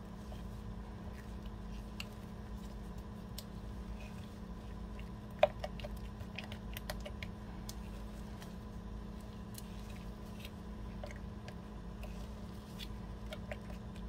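Spatula stirring a thick cream face mask in a glass measuring jug: soft squishing and scraping with scattered small clicks against the glass, one sharper click about five seconds in, over a low steady hum.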